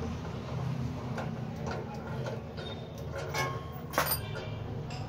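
Scattered clicks and light knocks of metal parts being handled on a 14-inch cut-off machine during reassembly, with the sharpest knock about four seconds in, over a steady low hum.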